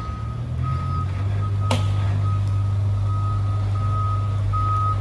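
Garbage truck's reversing alarm beeping steadily, about two beeps a second, over a steady low hum that comes up about a second in. A single sharp click sounds near the middle.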